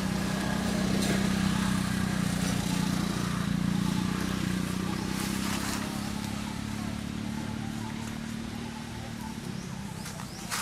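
A vehicle engine running with a steady hum, which slowly fades over the second half.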